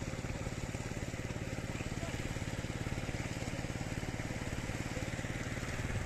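A small engine running steadily with a rapid, even putter.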